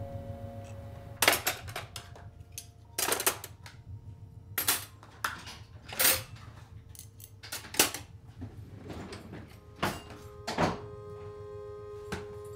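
Slow footsteps and the taps of a walking cane on a hard floor: about nine sharp knocks at uneven spacing, a second or more apart. Faint held music notes sound underneath.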